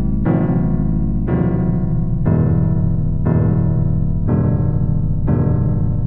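Slow electric piano music: a chord struck about once a second, each one held and fading into the next.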